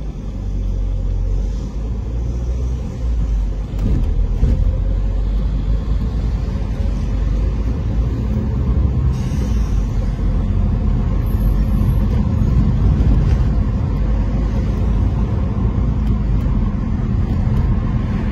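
Low, steady rumble of a car driving along a city street: engine and tyre road noise.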